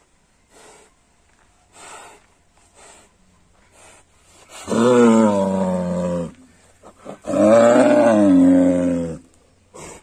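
Bull bellowing twice: two long, low calls about a second apart, the second a little longer. Before them are a few faint short sounds.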